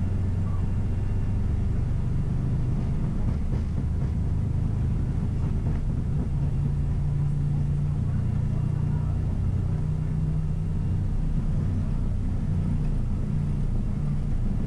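Airbus A320 on its takeoff roll: a steady, low rumble of the engines at takeoff thrust and the wheels running down the runway.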